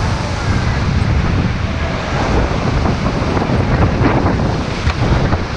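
Whitewater on the Ganges rushing and splashing around a paddled raft, with heavy wind buffeting on the microphone; a few sharper splashes about four to five seconds in.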